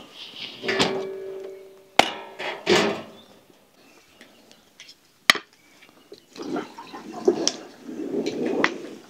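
Metal cookware and utensils knocking and clinking as they are handled. One knock about a second in rings on briefly, there are sharp clicks about two and five seconds in, and more clattering comes near the end.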